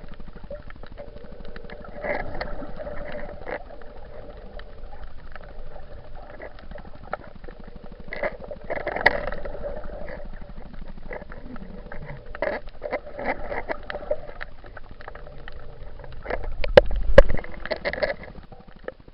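Muffled water sounds heard through an action camera's waterproof case: sloshing and gurgling with scattered knocks on the case, and a cluster of louder low thumps near the end.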